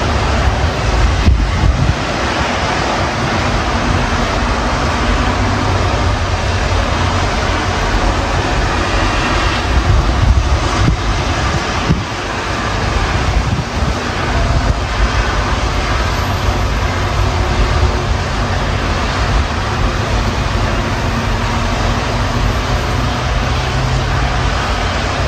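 Storm wind buffeting the microphone: a loud, steady rushing with a deep rumble, mixed with road traffic noise.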